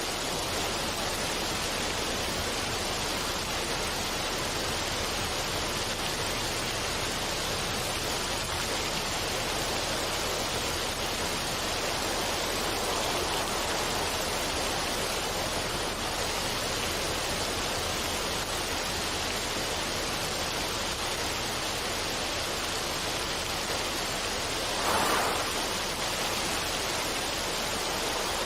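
Running water rushing steadily as an even hiss, with one brief louder surge near the end.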